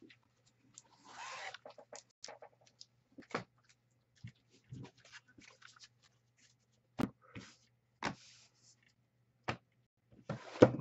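Trading cards and cardboard card boxes being handled on a desk: scattered brief rustles, clicks and taps, with a sharp knock about seven seconds in.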